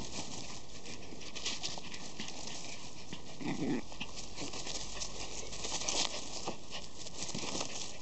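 Schipperke puppies scuffling on leaf-strewn grass: a steady patter of paws and rustling of fallen leaves, with a brief low sound about three and a half seconds in.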